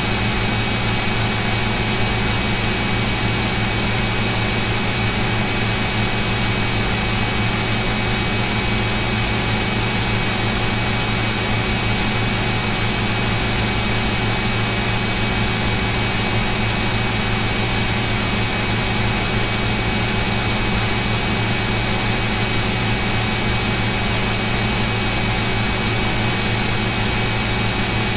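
A steady, unchanging machine drone: an even hiss over a constant low hum, with a couple of fixed high whining tones.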